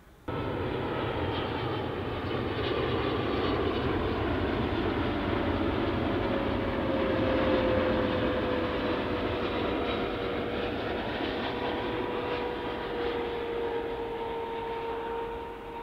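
Jet airliner on its landing approach, engines running with a steady rumble and a whine that slowly falls in pitch as it passes, loudest midway and fading near the end.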